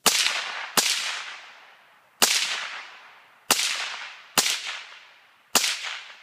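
Suppressed FN PS90 firing 5.7x28mm rounds, six shots at an uneven pace, each trailing off over about a second and a half.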